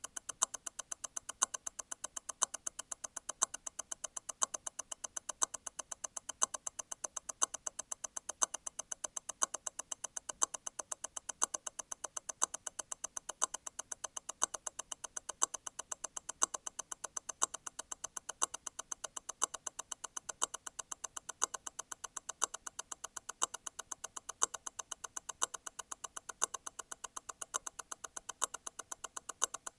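Grand Seiko T0 Constant-force Tourbillon hand-wound movement ticking at 28,800 vibrations per hour, a fast even ticking of about eight beats a second. A louder click about once a second comes from the constant-force mechanism's stop wheel coming out of mesh and striking again once every eight vibrations.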